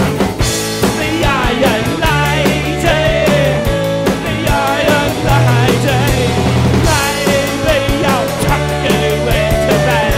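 Loud rock music with a steady drum beat, a bass line and a wavering melodic lead.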